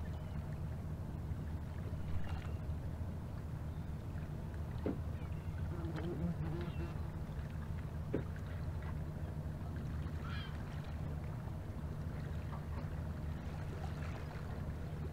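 A fishing boat's engine running with a steady low hum, with a few brief higher-pitched sounds scattered over it.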